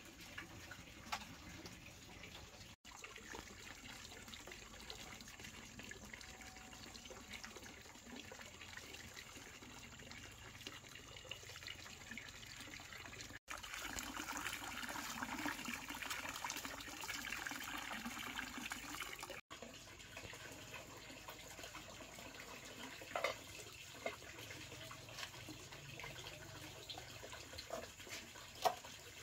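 Water running and splashing steadily, with scattered light clicks and knocks. It grows louder in the middle third, and the sound breaks off for an instant three times.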